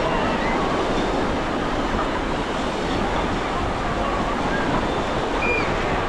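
Ocean surf washing onto the beach: a steady, unbroken rush of breaking waves.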